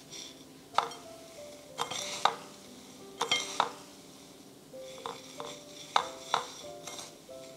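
A metal spoon clinking against a ceramic bowl and breadcrumbs rustling as a croquette is rolled and coated in them, with a dozen or so sharp clinks at irregular gaps. Soft background music plays underneath.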